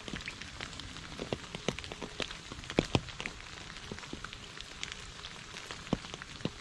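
Steady rain falling into shallow puddles and onto wet leaves: an even hiss with many separate drops plinking close by, a few louder splashes about three seconds in and again near the end.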